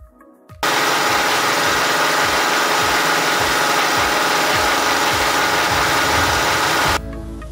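A loud, steady mechanical noise with a hum in it cuts in suddenly about half a second in and stops abruptly near the end, with a dance-music beat faintly underneath.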